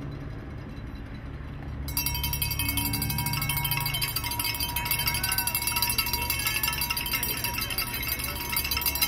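Continuous rapid chiming and clinking, starting suddenly about two seconds in.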